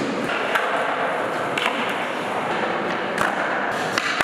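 Skateboard wheels rolling on smooth concrete, with several sharp clacks of boards striking the floor; near the end a board is popped for a flip trick.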